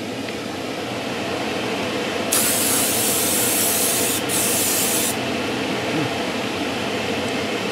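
Airbrush spraying a wet coat of heavily thinned paint, almost neat thinners: a hiss that starts a couple of seconds in, breaks off once for a moment, and stops about three seconds later, over a steady background noise.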